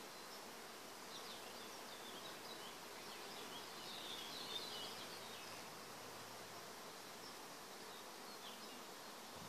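Faint, steady hum of many honeybees foraging in flowering black locust (robinia) trees, with some high chirping in the background between about one and five seconds in.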